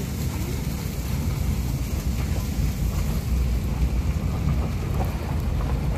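Car driving along a gravel road, heard from inside the cabin: a steady low rumble of engine and tyres on gravel.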